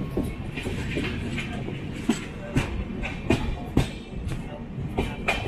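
Passenger train running: a steady rumble with irregular sharp clacks and knocks from the wheels over the rail joints.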